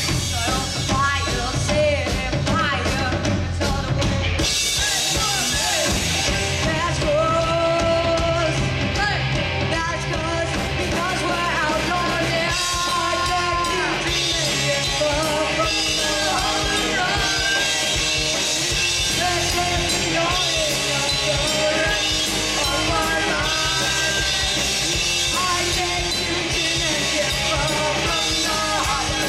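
Live rock band playing at full volume: electric guitars, bass guitar and drum kit, with a sung vocal line over them.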